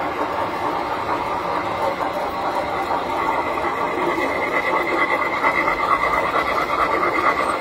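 Tinplate toy train running on the layout track: a steady whirring rumble of motor, gears and wheels, growing louder about three seconds in as the locomotive comes past.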